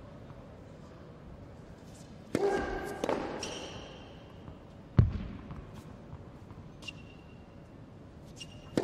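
Tennis rally on an indoor hard court: sharp pops of the ball on racket strings and ball bounces, with sneaker squeaks on the court surface, echoing in the hall. The loudest, deepest hit comes about five seconds in.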